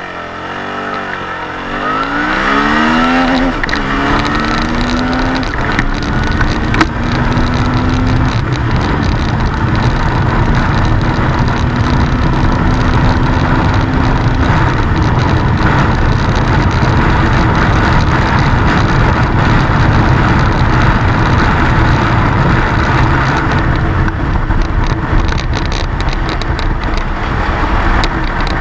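Suzuki V-Strom 650's V-twin engine accelerating hard from a standstill up through the gears, its pitch climbing and dropping back at each of several upshifts over the first fifteen seconds. It then holds at high speed near top speed under a loud, steady rush of wind.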